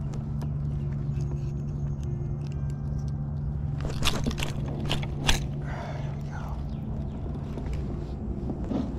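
Clicks, knocks and scraping of fishing gear being handled aboard a kayak, loudest about four to five seconds in, over a steady low hum and rumble.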